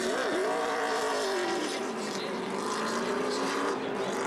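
NASCAR Nationwide Series stock car V8 engines running, their pitch sliding up and down as the cars pass and change speed.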